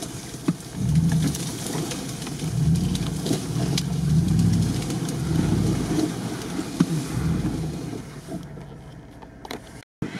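Jeep Grand Cherokee's engine, heard from inside the cabin, pulling under throttle over rough frozen ground. It picks up about a second in, its note rising and falling for several seconds with knocks from the bumps, then eases off. The sound cuts out briefly near the end.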